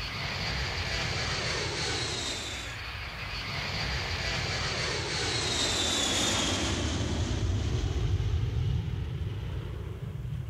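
Jet airliners passing low overhead on approach with landing gear down: the turbofan engines give a high whine that falls in pitch as each plane goes over, over a low rumble. The whine breaks off about two and a half seconds in and a second falling whine follows, and the rumble grows louder toward the middle.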